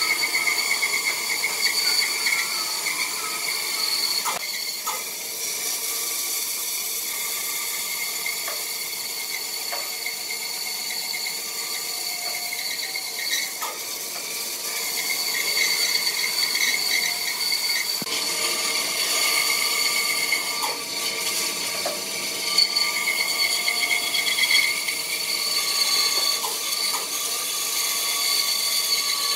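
Bandsaw running and cutting a thick block of glued-up wood along a curved line, its blade giving a steady high whine that weakens for a while in the middle and comes back, with a few small knocks as the block is turned.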